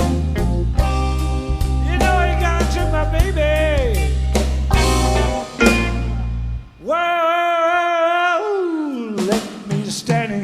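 Electric blues band playing live: drums, bass and a lead melody with bending notes. About seven seconds in, the band drops out under one long held note that then slides down in pitch before the band comes back in.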